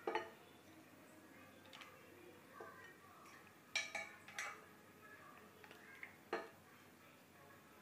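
Faint, scattered clinks of a plastic ladle knocking against a glass bowl and the cooking pot while egg mixture is scooped and poured, about six light taps, one or two with a short glassy ring.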